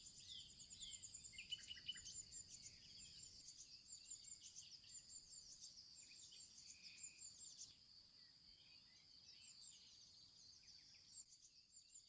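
Faint outdoor chorus of small birds, many quick high chirps and twitters, over a steady high-pitched insect drone. The chirping thins out about two-thirds of the way through.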